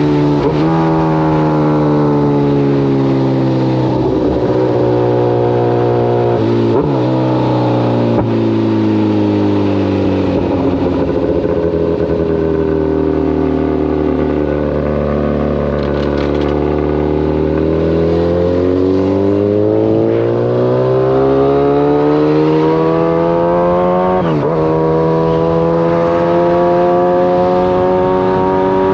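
Kawasaki ZX-14 sport bike's inline-four engine running, its pitch sinking slowly for about a dozen seconds, holding low, then climbing again, with a few brief breaks in the note along the way.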